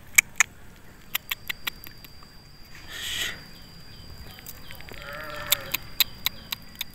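Quiet outdoor sound with scattered sharp clicks and ticks over a faint, high, steady tone. There is a brief rush of noise about three seconds in, and a short, faint animal call about five seconds in.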